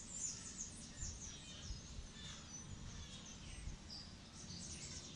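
Small birds chirping faintly in the background, a steady run of short high chirps, over a low rumble of background noise.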